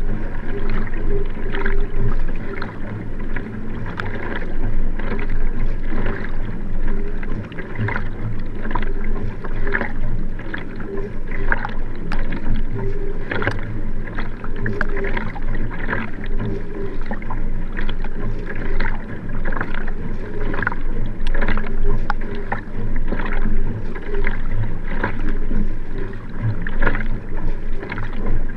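Sprint kayak under racing pace: water rushing along the hull and the paddle blades splashing in and out in a steady, rapid stroke rhythm, heard from a camera on the rear deck.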